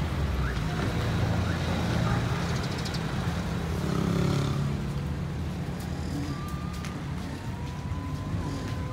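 Outdoor ambience: a low, steady rumble of wind on the microphone mixed with vehicle traffic, with a faint thin steady tone in the last few seconds.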